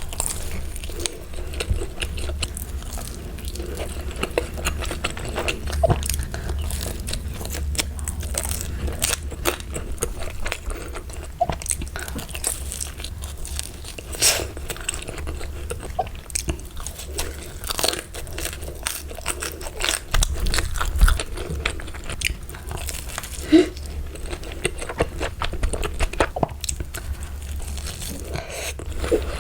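Close-up eating sounds: a person biting and chewing crunchy food, with many sharp crunches throughout, over a steady low hum.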